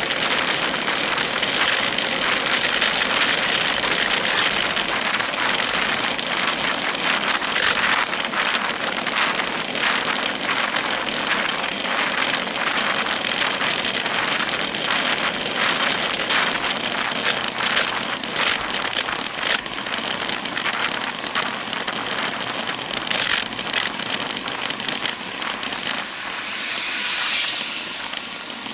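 Wind rushing over a bike-mounted camera at road speed, buffeting in gusts, with road-bike tyres hissing on asphalt. A motor vehicle swells up close near the end and fades.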